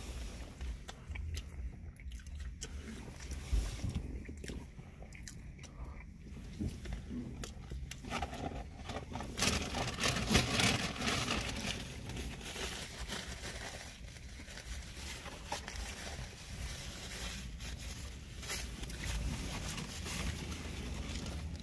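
Two people chewing mouthfuls of McChicken sandwich, with small crunches, clicks and smacks of eating. A louder rustling noise comes about ten seconds in.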